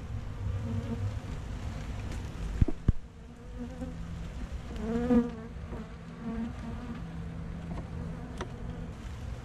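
Honey bees buzzing around an open hive, with one bee buzzing louder and wavering in pitch as it passes close about halfway through. Two sharp knocks come a little under three seconds in.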